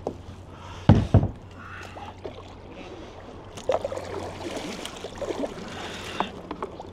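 Water splashing and trickling against a moving pedal kayak's hull, with two heavy low thumps about a second in.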